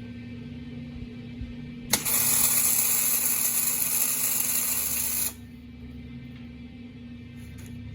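A loud, even hiss starts suddenly about two seconds in, lasts about three seconds, and cuts off abruptly, over a steady low hum.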